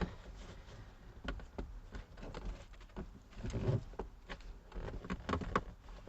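Irregular clicks and rustling scrapes as new carpet is pushed and tucked under plastic interior trim in a C4 Corvette, worked in with a flat screwdriver, with a denser stretch of scraping about halfway through.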